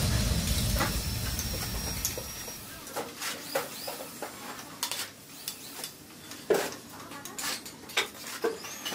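Background music fading out over the first couple of seconds, then a bricklayer's trowel clinking and scraping on clay bricks and mortar: a dozen or so irregular sharp taps as bricks are set and tapped into place.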